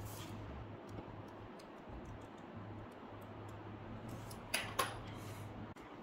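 Faint handling sounds of hands working on a ThinkPad T580 laptop's display assembly: scattered small plastic clicks and taps, with two sharper clicks in quick succession a little past the middle, over a low steady hum.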